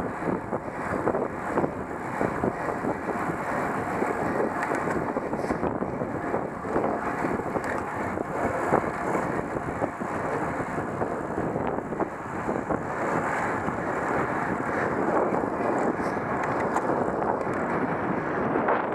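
Wind buffeting the microphone of a helmet camera on a road bicycle ridden at race speed: a steady, loud rushing noise that flutters throughout.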